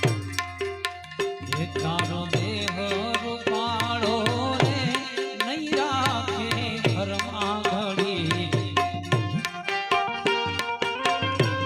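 Instrumental interlude of a Gujarati folk bhajan: hand drums keep a steady, quick beat with bending bass strokes under a wavering, ornamented melodic line.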